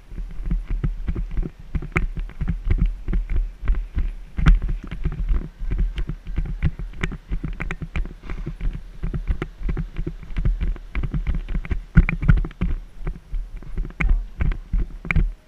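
A horse's hooves thudding on grass turf in a quick, continuous run of dull beats, heard close up through a camera on the rider's helmet.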